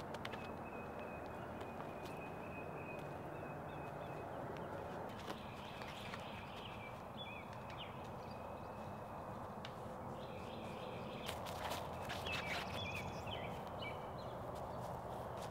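Faint woodland ambience with high, thin animal calls: a steady trill for the first few seconds, then on-and-off chirping phrases. A few soft clicks come about two-thirds of the way in.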